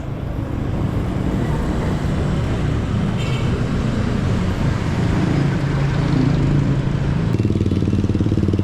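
A motor vehicle's engine running with road noise, its low hum shifting in pitch. About seven seconds in the hiss drops away and a low, even throbbing remains.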